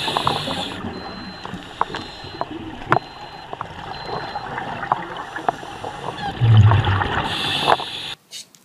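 Underwater sound of a scuba diver breathing through a regulator: a steady rush of noise with scattered sharp clicks. A louder rumbling surge of exhaled bubbles comes near the end, then the sound cuts off suddenly.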